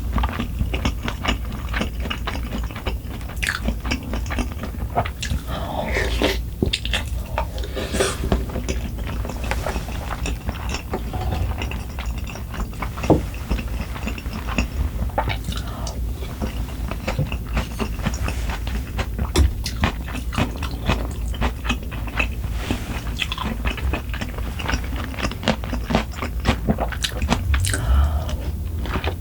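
A person chewing and biting food close to the microphone, with crunching and many small mouth clicks throughout.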